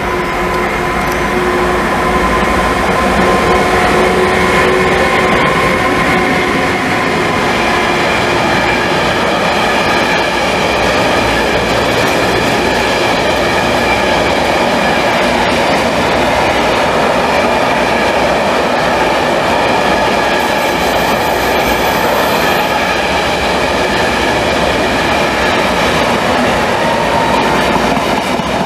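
Electric-hauled intermodal freight train passing close by: a long rake of pocket wagons carrying semi-trailers, wheels rolling on the rails with a loud, steady noise. A few thin steady tones sound over the first several seconds and then fade out.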